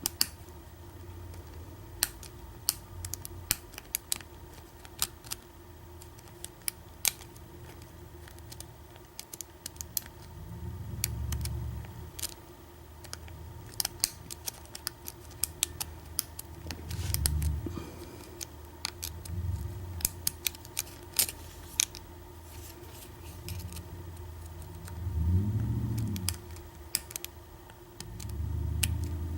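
Lock picking in an American 1100 padlock: a pick and tension wrench working the pins, giving scattered sharp metallic clicks and ticks. Several low, muffled handling rumbles come and go, the longest about 25 seconds in.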